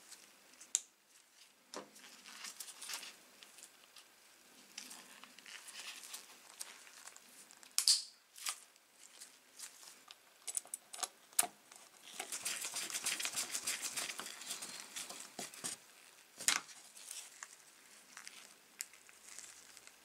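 Gloved hands handling and fitting small plastic and metal parts into an angle grinder's plastic motor housing: scattered clicks and taps, with a stretch of rustling in the middle.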